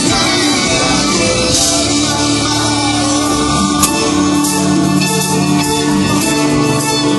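Live rock band playing with a section of violins, with notes held steadily over the band. A single sharp click about four seconds in.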